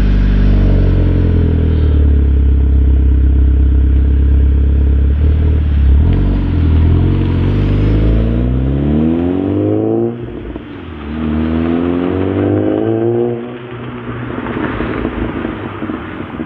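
Volkswagen Mk6 GTI's freshly rebuilt 2.0-litre turbocharged four-cylinder TSI engine running steadily, then pulling away. The revs climb, drop at a gear change about ten seconds in, climb again, then fall away and fade as the car drives off.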